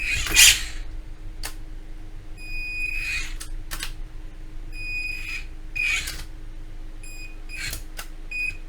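Short, high electronic beeps repeating every second or two, mixed with brief whooshing swishes and a few clicks, over a faint steady hum.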